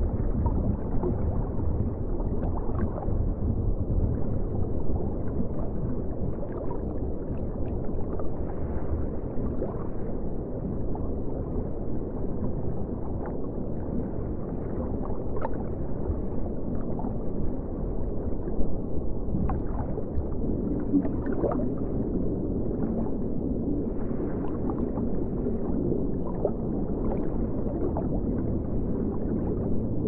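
Steady low rumble and gurgle of moving water, like underwater ambience, with faint scattered ticks.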